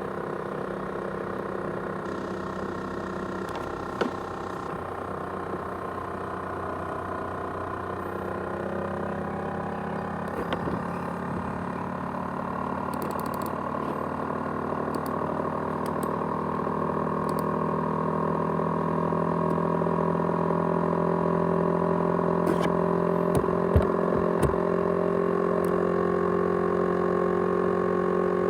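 ASUS X543UA laptop running with a steady whir made of several held tones, growing louder from about eight seconds in, with a few scattered clicks: the jet-engine-like noise the laptop is making.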